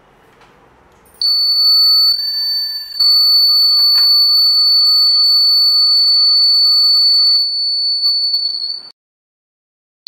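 Black round piezo alarm buzzer in a simple hand-wired theft-alarm circuit sounding a steady high-pitched tone once the 9-volt battery is connected. It wavers about two seconds in, then holds steady and stops near the end.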